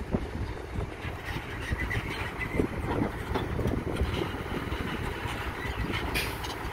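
Heavy diesel engine running steadily, with a few brief knocks about three seconds in and a short hiss near the end.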